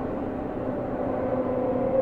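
Seibu New 2000 series electric commuter train running, heard from inside the passenger car: a steady rumble of wheels on rail with a faint motor and gear whine.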